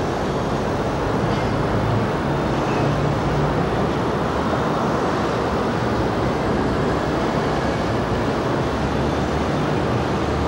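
Steady street traffic noise from double-deck electric trams and road vehicles rounding the street, with a low hum that swells about a second in and again after about eight seconds.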